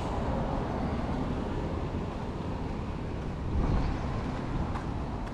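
Street traffic noise, a steady rumble of passing vehicles with one vehicle going by and loudest a little past halfway.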